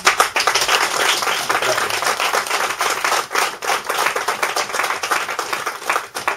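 Audience applauding: clapping starts suddenly and thins out near the end.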